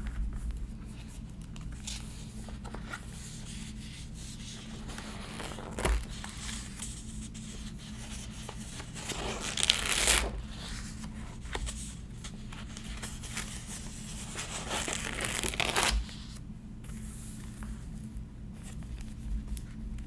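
Pages of a spiral-bound grid-paper notebook being turned, each turn a papery swish, with a quieter rustle of the paper being handled in between. The loudest turns come about halfway through and about three-quarters of the way through.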